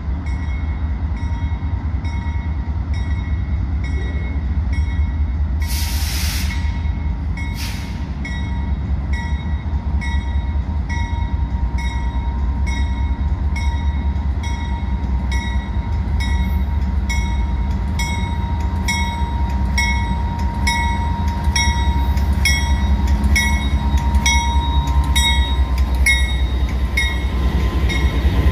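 BNSF diesel freight locomotive hauling a grain train, its deep engine and rail rumble growing steadily louder as it approaches and draws alongside, with a bell ringing steadily about twice a second. Two short hisses come about six and eight seconds in, and a faint steady whine joins in the second half.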